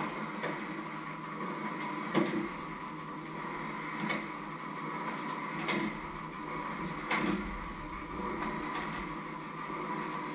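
A few sharp knocks and clinks of a kitchen utensil against a mixing bowl as food is stirred and scooped, over a steady electrical hum.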